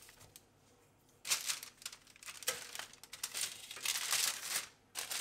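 Baking paper crinkling and rustling as it is handled and laid into a baking tray, in uneven stretches after about a second of quiet.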